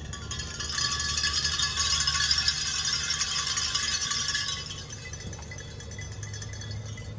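Many small hand bells rung together by a congregation, a dense jingling that starts about half a second in and dies away after about four and a half seconds.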